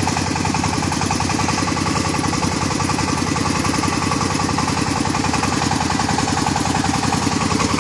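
Small tracked rice combine harvester running steadily, its engine note even throughout.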